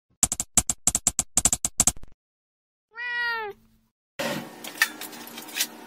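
A quick run of about a dozen sharp clicks in uneven groups, then a single cat meow about three seconds in that rises and falls in pitch. After it comes a steady hiss with scattered clicks.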